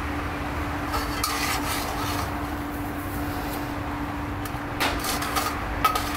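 Metal spatula stirring and scraping against a steel wok of thin sauce, a few short scrapes and clinks over a steady low hum, as sugar is stirred in to dissolve.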